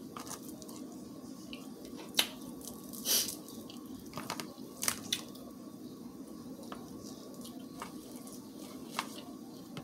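Close-up eating sounds of rice with gravy: wet mouth smacks and a handful of short, sharp clicks spread through, over a steady low hum.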